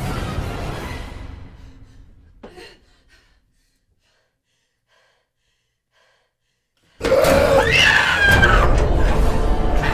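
Film music fades away into a few seconds of silence. About seven seconds in, a sudden loud human scream cuts in over a heavy low rumble.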